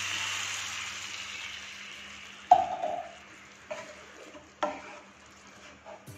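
Yogurt masala gravy sizzling in a nonstick pan just after a little water goes in, the sizzle dying away over the first couple of seconds. Then a wooden spatula stirs the gravy, knocking against the pan a few times.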